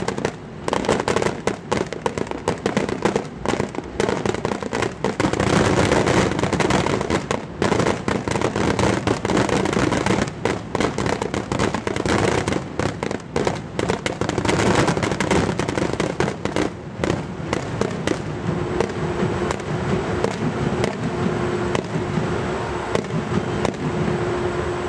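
Fireworks display: a dense run of bangs and crackling that thins out in the last several seconds, when a steady hum comes in under it.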